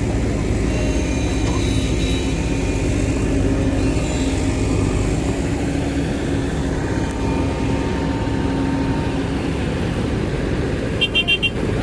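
Heavy vehicle's diesel engine running steadily, with a low hum. Near the end, a quick run of about four short electronic beeps.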